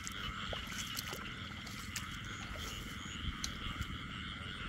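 Many paddy frogs calling together in a dense, continuous chorus, the breeding-season calling of frogs in a flooded rice field.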